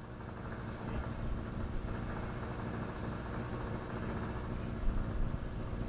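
Steady low rumble of outdoor background noise, with faint high ticks repeating a few times a second and a couple of slightly louder bumps about five seconds in.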